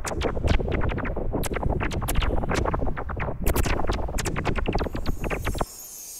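Electronic repellent sound effect: a dense run of sharp clicks over a low rumble, cutting off abruptly near the end and leaving a faint hiss.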